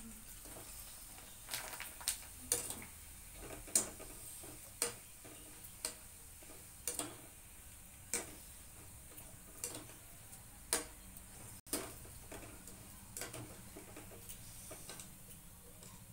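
Colourful fryums sizzling in hot oil in a kadai, with a metal slotted spoon tapping and scraping against the pan about once a second as the pieces are turned and lifted.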